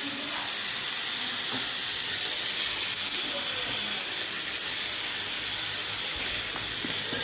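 Lemon pieces and dried red chillies frying in hot oil in a metal pan, a steady high sizzle.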